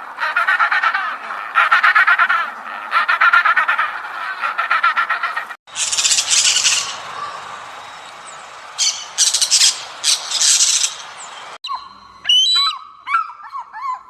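Animal calls in three short cut-together clips: first rapid trilling calls in repeated bursts, then sharp high-pitched bursts, then quick chirps that sweep up and down in pitch.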